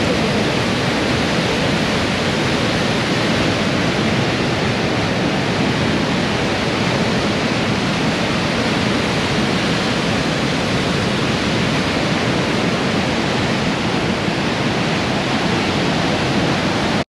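Yellowstone River waterfall: a large volume of white water pouring over the brink and crashing into the canyon below, heard up close as a loud, steady rush of noise.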